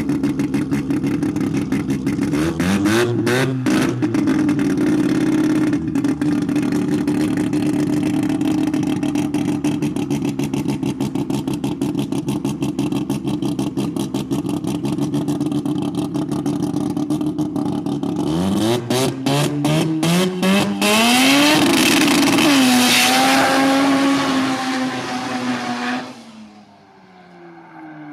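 Drag racing car's engine idling with a fast, even beat, briefly revved about three seconds in. Near the end it revs several times, then launches and runs down the strip at high revs, and the sound drops away sharply about two seconds before the end.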